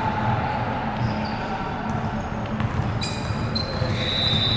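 Indoor ball game on a hard court: a ball bouncing and players moving about, with a few short high squeaks.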